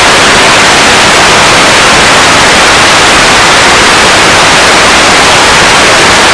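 Loud, steady static hiss like an untuned television, an even noise with no change in it.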